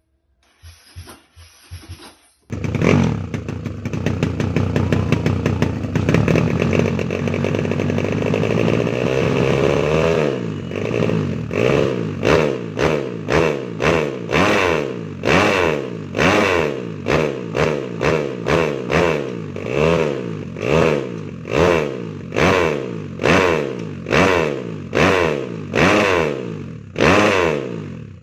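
Kawasaki KLX dirt bike with a 240cc bore-up single-cylinder four-stroke engine, revved on the stand. It catches about two and a half seconds in and holds high revs. From about ten seconds in it is blipped repeatedly, a little faster than once a second, rising and falling each time, and it cuts off at the end.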